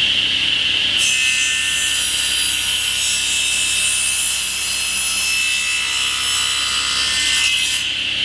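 Table saw running with a steady high whine. About a second in, its blade starts cutting through an ash hardwood block, adding a rough sawing hiss that carries on steadily.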